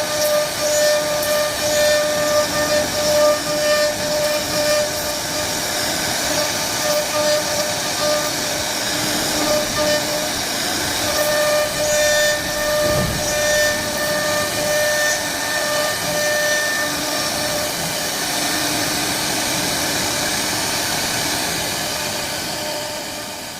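CNC router spindle running and carving wood: a steady whine with overtones over a cutting hiss, dropping in and out slightly, then fading out near the end.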